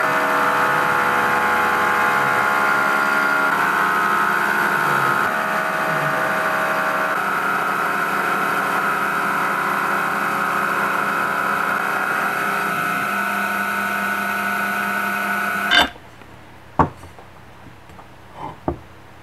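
Hobby CNC mill's spindle motor running at just above 4000 RPM while a 5.5 mm end mill cuts aluminium: a steady many-toned whine with cutting noise, its pitch shifting in small steps a few times. It cuts off suddenly near the end, followed by a few faint clicks.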